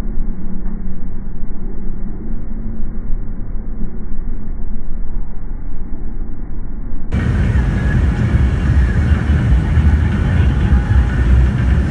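Steady rumble of a car being driven, with a low steady hum. About seven seconds in the sound cuts abruptly to a louder, fuller road rumble with faint high whining tones.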